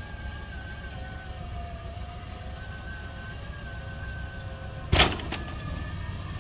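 Rock-crawling Toyota 4Runner's engine running at low speed with a steady whine over it, then a single loud bang about five seconds in as the rig lurches up the rock ledge.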